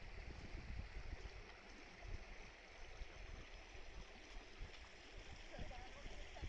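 Small stream running along a grassy field ditch: a faint, steady rushing of water.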